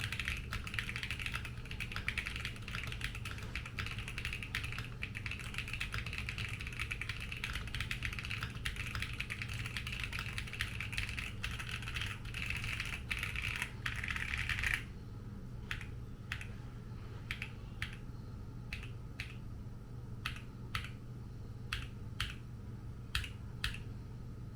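Monsgeek M1W mechanical keyboard with Akko Cream Yellow linear switches and double-shot OEM keycaps, all stock, typed on fast and continuously. About fifteen seconds in, the fast typing stops and single keys are pressed one at a time, a dozen or so separate clacks. The uploader finds the stock sound slightly thin.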